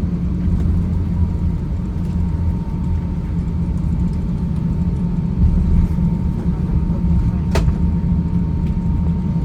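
Steady low cabin rumble inside an Airbus A350-900 on the ground before takeoff, from the engines at idle and the air conditioning. A faint steady tone runs beneath it, and there is one sharp click about seven and a half seconds in.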